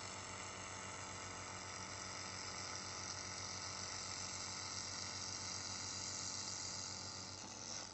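Handheld laser welder running a vertical weld on 6 mm mild steel: a steady hiss with a faint hum that cuts off suddenly near the end as the weld stops.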